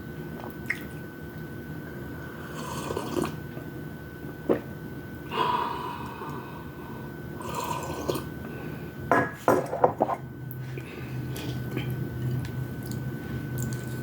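Close-miked eating sounds of fried chicken wings and rice: wet mouth noises and several short clicks and clinks of tableware, clustered about nine to ten seconds in, over a faint steady high whine.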